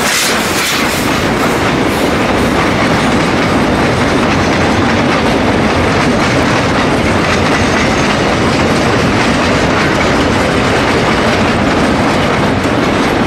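Freight wagons of a steam-hauled train rolling past, their wheels clattering over the rail joints in a steady rumble. Sharp, regular exhaust beats from the steam Garratt locomotive ahead fade out in the first two seconds.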